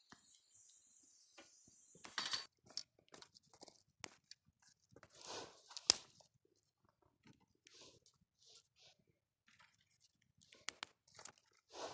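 Close, irregular crunching, rustling and clicking, with a sharp snap about six seconds in. Crickets chirp steadily for the first two seconds, then stop.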